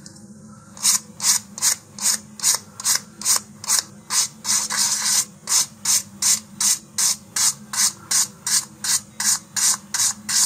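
Sandpaper on a sanding tee rubbed back and forth along the tapered edge of a balsa fin skinned with glue-soaked paper, in short regular strokes about three a second, starting about a second in.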